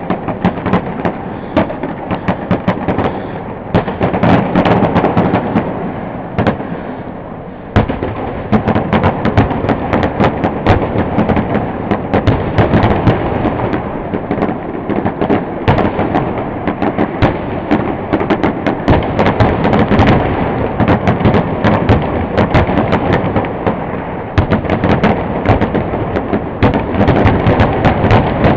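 Fireworks finale barrage: shells bursting in rapid, overlapping cracks and booms over a continuous rumble, barely letting up.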